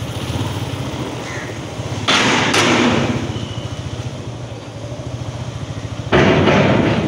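Motorcycle engine running as the bike is ridden slowly, with a steady fast pulsing. Twice a louder rush of noise lasting about a second breaks in: about two seconds in and again near the end.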